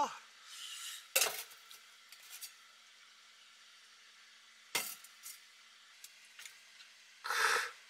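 A few sharp clinks of chopsticks and cookware against a stainless steel tray and counter, spaced apart in a quiet room, then a short breathy hiss near the end.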